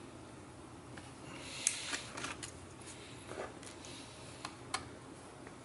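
Faint small clicks and light scraping of a screwdriver and hands working screws out of the side of a laptop's plastic bottom case, with the sharpest click a bit under two seconds in.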